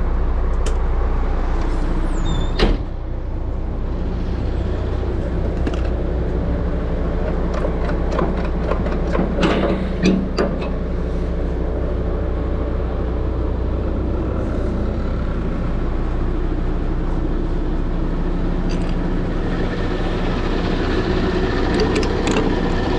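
Heavy truck diesel engine running steadily, with a sharp clack about two and a half seconds in and a few knocks around ten seconds in.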